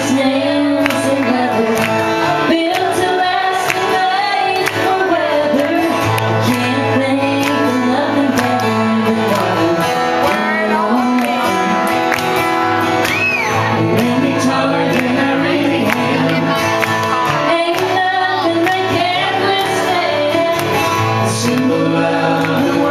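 Live country song: a woman sings lead into a microphone over steady acoustic guitar strumming.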